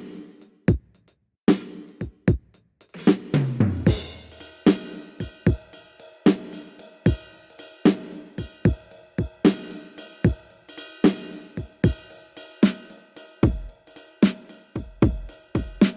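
Sampled drum kit from the Ketron SD90 SoundFont. It plays scattered hits, then a fill falling in pitch about three seconds in, then a steady beat of bass drum, snare and hi-hat.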